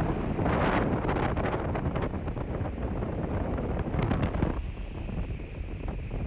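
Wind buffeting the microphone in irregular gusts, easing after about four and a half seconds.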